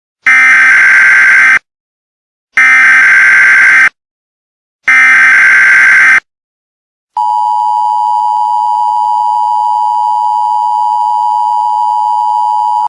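Emergency Alert System opening: three short bursts of SAME header data, a harsh digital warble, each about a second and a quarter long with brief gaps. Then the steady two-tone EAS attention signal sounds for about six seconds, announcing an alert message.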